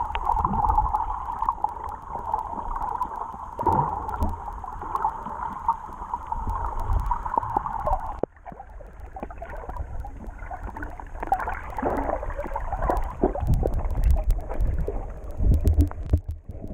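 Underwater water noise picked up through a GoPro's waterproof housing: a steady muffled rush with low thumps of the surge. About eight seconds in it drops suddenly and turns to crackling and gurgling with many small clicks.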